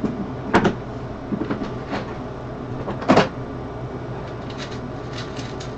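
A few scattered knocks and clicks of someone rummaging below a desk, the loudest about three seconds in, with lighter ticks near the end, over a steady low room hum.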